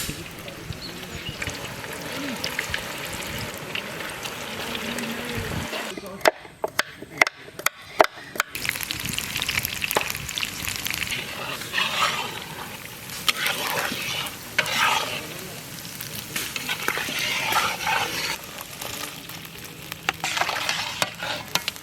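Food frying in a pan and being stirred, with a steady sizzle and irregular scraping strokes. A few sharp clicks come between about six and eight seconds in.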